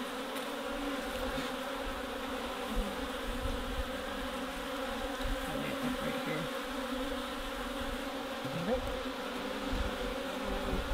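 Honeybees buzzing over an open hive: a steady, dense hum from the colony, with now and then a single bee gliding up or down in pitch as it flies close past.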